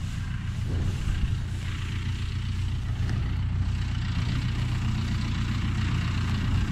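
John Deere tractor engine idling steadily, a low even hum, with hay rustling and tearing as a bison feeds at the bale right by the microphone.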